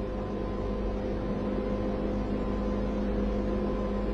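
Steady, unchanging hum with hiss, with no distinct events.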